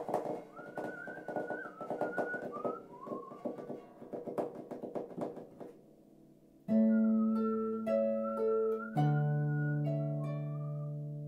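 Harp played live: quick runs of plucked notes, then after a short hush three loud chords struck about a second apart and left ringing. A thin, wavering high melody line sounds above the harp.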